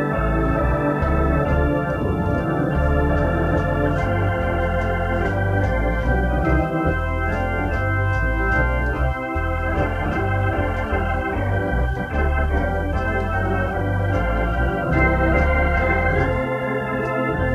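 Organ music without singing: sustained chords changing every second or so over a moving bass line.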